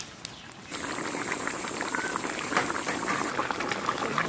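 Large karahi of fish and cauliflower-potato curry at a full boil: a dense, steady crackle of bursting bubbles with a hiss over it. It starts suddenly about a second in, after a quieter stretch with faint clicks. The curry is fully cooked and ready to come off the heat.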